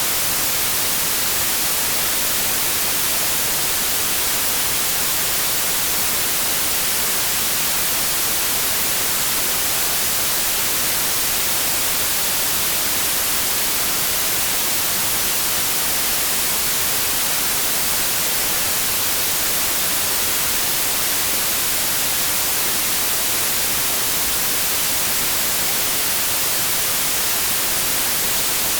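Synthetic white noise: a steady, even hiss, strongest in the highs, with no change.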